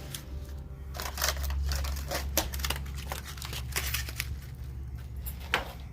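Ford 351 two-barrel V8 idling with a steady low rumble while it warms up, with irregular sharp clicks and crackles over it.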